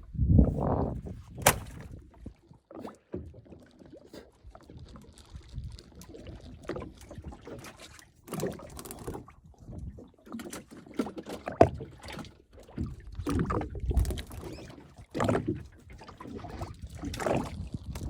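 Water sloshing and slapping against the hull of a small fishing boat at sea, in irregular surges. Now and then there are sharp knocks on board.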